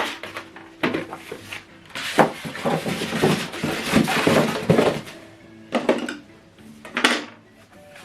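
Rustling and clattering of packaging and plastic wrap as a soundbar is lifted out of its box, with a few sharp knocks, busiest in the middle. Quiet background music runs underneath.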